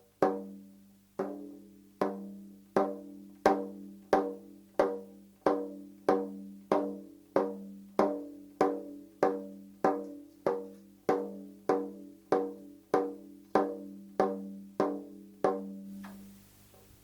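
Small baile chino drum (tamborcito) struck with single strokes in a steady beat, a little under two a second, each stroke ringing on with a clear pitched tone. It is the drum's son, the rhythm that leads a baile chino. The beat stops near the end and the ring dies away.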